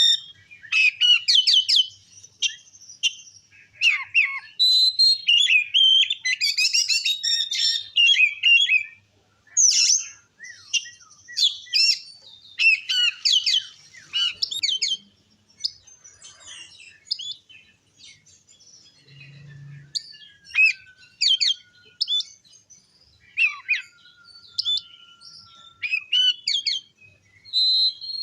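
Oriental magpie-robin (kacer) in full, loud song: rapid, varied chirping and whistled phrases in bursts with short pauses, and two long, even, lower whistles in the second half.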